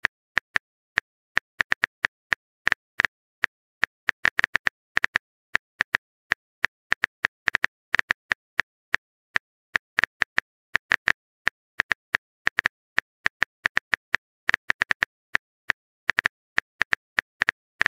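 Phone keyboard key-tap clicks as a text message is typed out one letter at a time: short dry ticks, several a second at an uneven typing rhythm.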